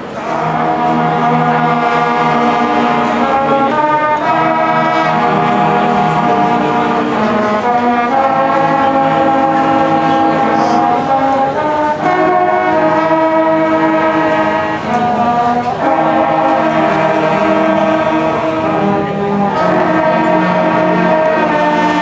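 Marching band brass section, tubas included, playing slow sustained chords. Each chord is held for a few seconds before moving to the next, over a low bass line.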